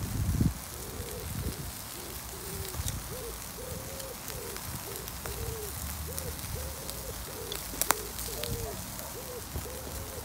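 A bird calling a short, low hooting note over and over, about twice a second, starting about a second in. A sharp click sounds once near eight seconds in.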